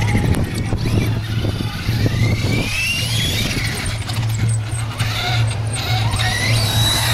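Electric RC truck's motor and gearing whining, rising in pitch as the truck accelerates between about a second and a half and three and a half seconds in, with another high whine near the end.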